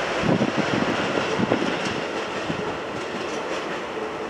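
JR Central KiHa 85 series diesel train passing close by and running away, its rumble fading steadily. A few wheel clacks over rail joints come in the first second and a half.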